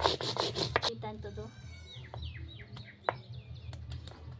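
Stone roller rasping back and forth on a grooved stone grinding slab (sil-batta) in quick strokes, grinding spice paste, stopping about a second in. After that, birds chirp with short falling calls, with a few light knocks.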